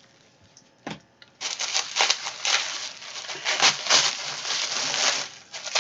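Plastic packaging crinkling and crackling as a tightly sealed parcel is worked open by hand. It starts about a second and a half in, after a short quiet pause with a single light knock.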